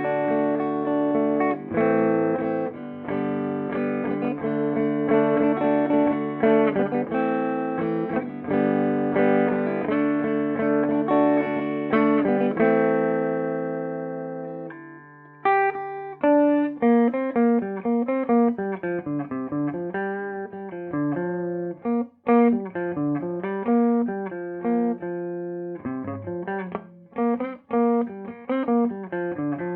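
Clean electric guitar played through a Peavey Bandit 112 combo amp on its clean channel in classic mode, high-gain input. For about the first half it plays strummed chords, and the last chord is left to ring and fade. After that, single notes are picked one at a time.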